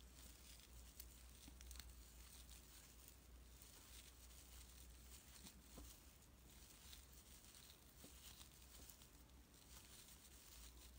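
Near silence, with faint rustling and scattered soft ticks of a metal crochet hook pulling glittery scrubber yarn through stitches.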